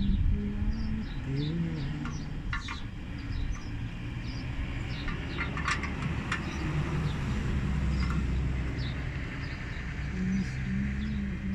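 Small birds chirping over and over above a low steady rumble, with a few sharp metallic clicks of a wrench on a bolt under the truck's chassis.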